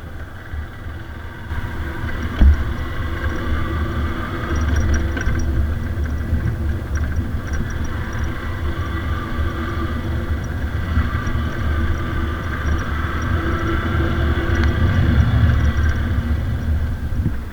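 Yamaha FZ-S V2 motorcycle's single-cylinder engine running while riding, with one sharp thump about two and a half seconds in. The engine gets a little louder near the end.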